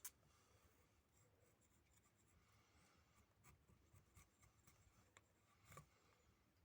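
Near silence: room tone with a sharp click at the start and a few fainter clicks later on.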